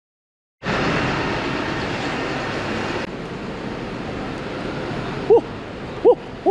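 City street traffic noise, a steady rush of vehicles that starts abruptly and eases a little partway through. Near the end come a few short hooting calls, each rising then falling in pitch.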